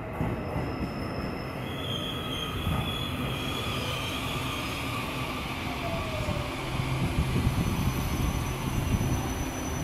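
Electric multiple-unit train rolling along the platform: a steady rumble of wheels on rails, with thin high-pitched wheel squeals that come and go.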